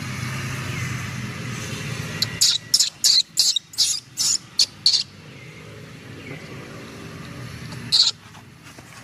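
Baby monkey squeaking: a quick run of about eight short, high-pitched squeaks over a couple of seconds, then one more near the end. A low steady hum runs underneath at the start.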